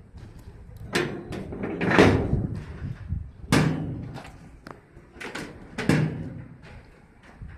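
A door being opened and shut: about five separate bangs, each with a short ringing tail.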